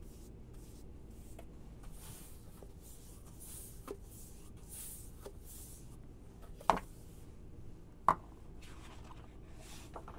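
Faint swishing of a wide paintbrush stroked across a sheet of paper, spreading alum solution to treat the page for marbling. Two short sharp knocks, the loudest sounds, come about a second and a half apart past the middle.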